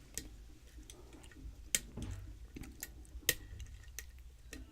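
Small sharp metallic clicks of a lock pick working the pin stack inside a Schlage lock cylinder under tension during single-pin picking. Three louder clicks come about a second and a half apart among fainter ticks.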